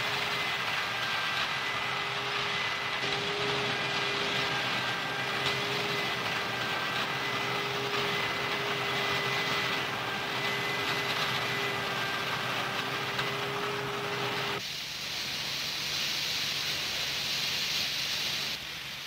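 Combine harvester running as it works through standing corn: a steady machine noise with a constant whine. About fifteen seconds in, the sound changes abruptly to a higher, hissing noise without the whine.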